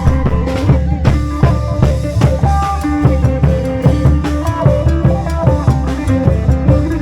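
Isan folk music from a klong yao long-drum band: drums keep a steady beat of about two strong hits a second while a melody moves in held, stepping notes over it.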